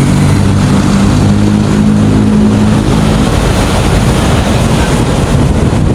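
An engine droning steadily for about the first three seconds, then dropping out, over a loud, constant rushing noise.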